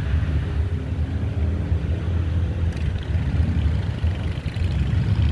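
Freight train rolling past, a steady low rumble of wheels on rail with a faint tone in it for the first couple of seconds.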